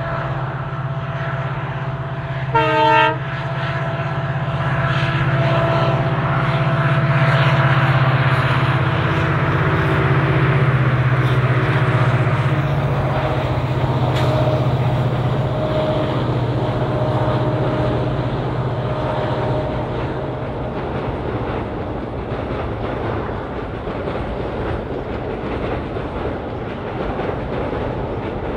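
WDP4D diesel-electric locomotive's EMD two-stroke V16 engine running steadily under load as it hauls the express, with one short horn blast about three seconds in. The passing coaches add rumble and wheel clatter on the track.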